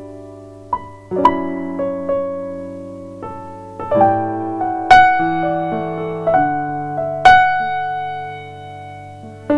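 Slow piano music: soft chords and single notes struck every second or two, each left to ring and fade over a sustained low bass note.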